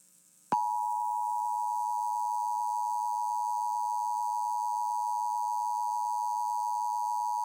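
Emergency Alert System two-tone attention signal: a steady pair of pure tones just under 1 kHz that starts about half a second in and holds without change. It announces that an emergency alert message follows.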